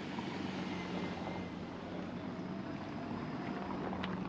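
Street ambience carried by a steady engine hum from a nearby vehicle, with a single sharp click near the end.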